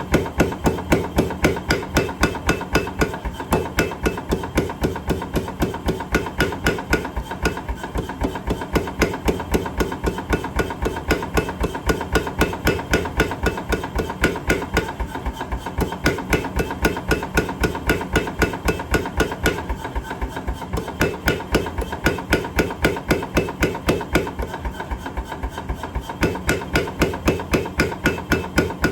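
Power hammer striking hot metal in a rapid, even rhythm of about three to four blows a second, over the steady hum of the machine.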